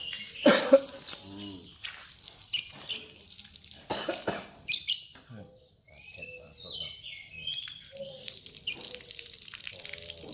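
Water spraying from a garden hose onto caged lovebirds to bathe them, coming in several short, uneven gushes. Lovebirds chirp in short stepped calls about six and a half seconds in.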